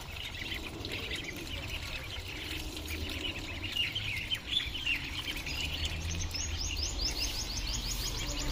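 A flock of ducklings peeping, many short high calls overlapping. Near the end a quick run of higher, rapid chirps joins in.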